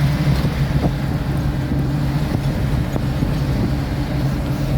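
Truck engine running at a steady drone with road rumble, heard from inside the cab while driving.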